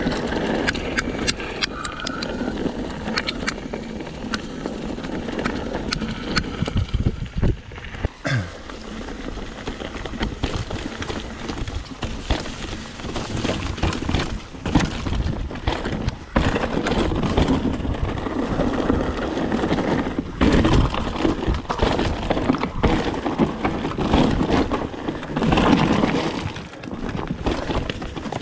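Mountain bike descending a rough, rocky trail: a steady rush of tyre noise broken by frequent sharp knocks and rattles as the bike hits stones and roots.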